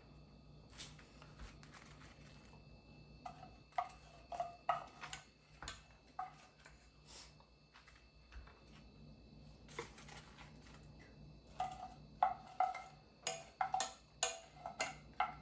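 Utensils clinking and scraping against a small metal saucepan as fish-sauce glaze is scooped out over fried chicken wings: light taps with a short ring, in scattered clusters that grow busiest in the last few seconds.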